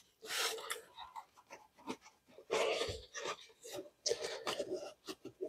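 Paper towel being rubbed across the oily metal gasket surface of an intake manifold, in a few short wiping strokes with pauses between them.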